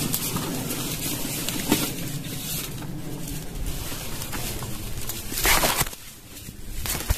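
Dry grass and reed stalks rustling and brushing against the handheld camera as someone pushes through swamp undergrowth. About five and a half seconds in, a louder scrape as vegetation drags across the microphone, then the rustling drops off, with a few snapping clicks.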